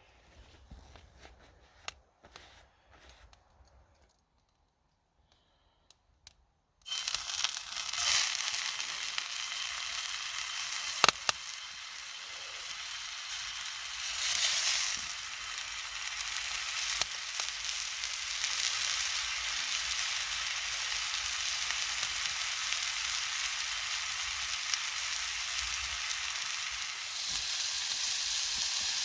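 A campfire being lit with a fire starter: after a few faint clicks, a steady hissing and crackling burn sets in suddenly about seven seconds in and carries on, with the odd sharp crack.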